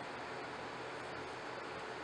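Steady hiss of background noise with no distinct sounds standing out.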